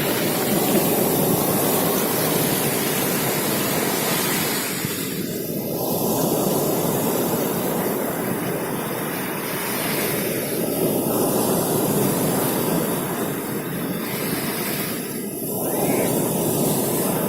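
Rough sea: waves making a continuous rushing noise that swells and eases every few seconds.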